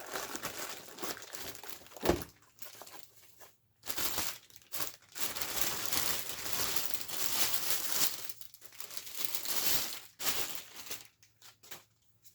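Packaging being crinkled and pulled open as a nail gun is unwrapped and taken out of its box: rustling and crinkling, with a long continuous stretch in the middle and a few small knocks.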